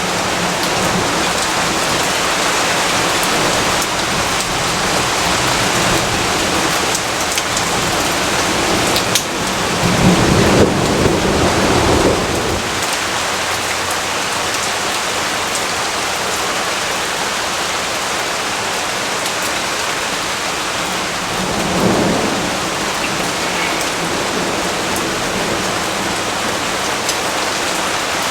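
Steady heavy rain falling, with a rolling rumble of distant thunder about ten seconds in that lasts a couple of seconds, and a shorter, fainter rumble a little past the middle.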